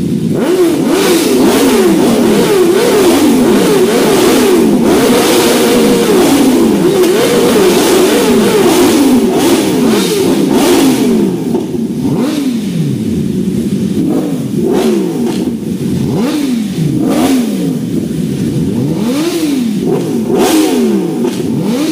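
Four stationary superbikes, a Yamaha R1, Honda CBR1000RR-R Fireblade and BMW S1000RR among them, all inline-fours, revved at the same time: many engines rising and falling over each other. The revving is densest for about the first half, then breaks into separate sharp blips that climb and drop back.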